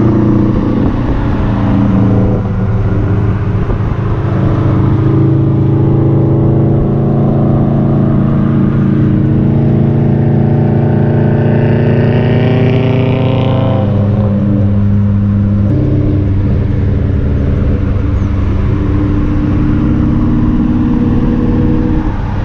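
Mitsubishi Lancer Evolution's turbocharged four-cylinder engine accelerating, its pitch climbing steadily for about twelve seconds, then dropping at a gear change about fourteen seconds in and running steadier after that.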